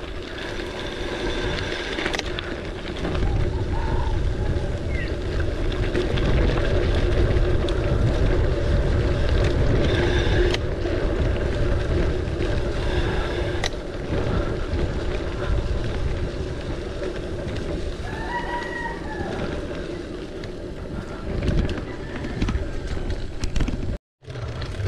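Wind rushing over the microphone and the rumble of gravel-bike tyres rattling down a rough dirt descent, with scattered clicks and knocks from the bike. A rooster crows once, about 18 seconds in.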